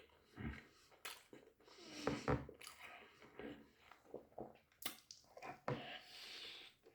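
Someone chewing and biting into a doner kebab: a run of irregular short mouth noises.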